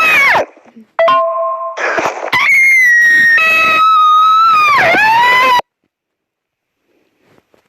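A person screaming very loudly into the microphone, clipped and distorted: a scream that falls away at the start, then a long high scream whose pitch swoops down and back up near the end before it cuts off suddenly.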